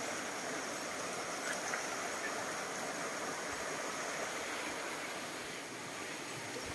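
Steady rush of a shallow, rocky river flowing over stones and small rapids.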